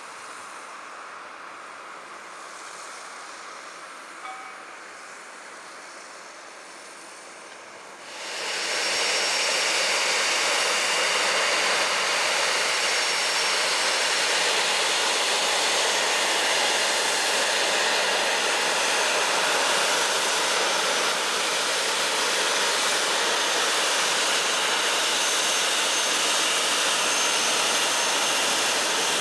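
Boeing 737-700's CFM56 turbofan engines running: a loud, steady jet noise with a faint high whine, which comes in suddenly about eight seconds in after a quiet start.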